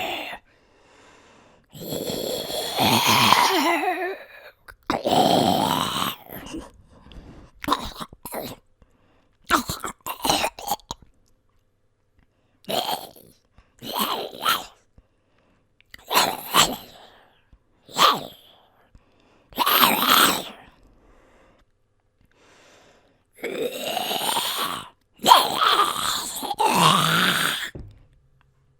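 Human voice performing zombie growls and grunts: about a dozen separate throaty vocal outbursts with silent gaps between. Some are long growls of a second or two, others are short grunts, and a close run of growls comes near the end.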